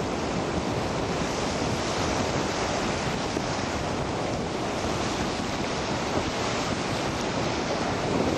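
Steady wind rushing on the microphone, mixed with the wash of sea waves.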